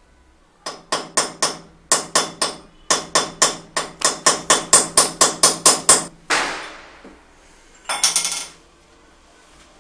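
Hammer tapping on a tool held in a hole in ceramic wall tile: about two dozen sharp metallic strikes, about four a second in short runs. A scraping rush follows, and a short rattle comes near the end.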